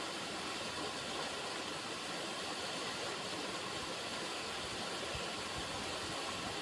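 River water running, a steady even rushing sound.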